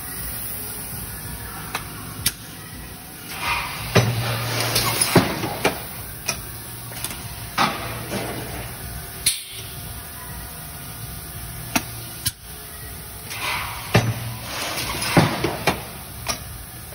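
Toggle-clamp press of a plastics forming machine running through its cycle. A rush of air comes first, then a low hum with sharp clunks and knocks as the platen linkage moves. The same pattern comes round again about ten seconds later.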